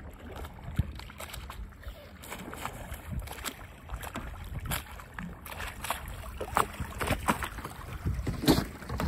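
Water slapping and splashing around an inflatable paddleboard as it is paddled across choppy water, in irregular splashes and knocks. Wind rumbles on the microphone throughout, and a sharper splash comes about eight and a half seconds in.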